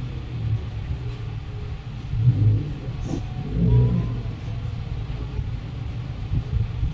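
Steady low rumble that swells twice near the middle.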